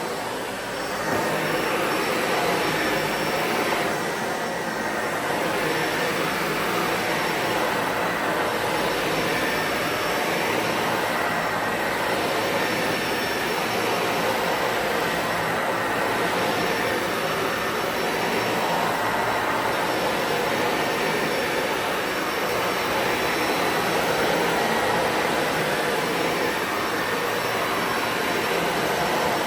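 Dyson Ball Animal 2 upright vacuum cleaner running steadily while vacuuming, its sound swelling and easing slightly every few seconds.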